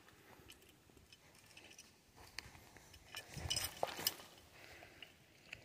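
Faint footsteps and rustling through dry brush and fallen palm fronds, with a few light clicks and a louder patch about three to four seconds in.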